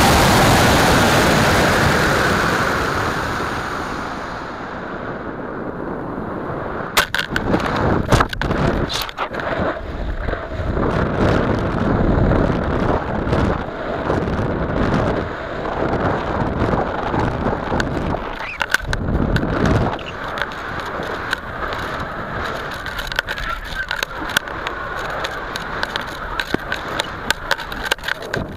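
Wind rushing past a model rocket's onboard camera as it coasts upward, a loud hiss that fades over the first few seconds. From about seven seconds in, as the rocket falls back toward the ground, irregular sharp knocks and rattles mixed with gusty wind noise.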